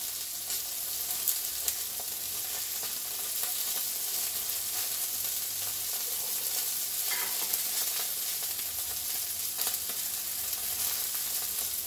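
Herbed chicken breast sizzling in a frying pan: a steady hiss with a few crackles and spits.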